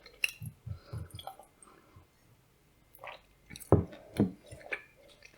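Mouth sounds of someone eating blueberry soufflé with nuts: wet, sticky chewing with short clicks. There is a quieter pause in the middle, then a few louder sharp sounds near the end.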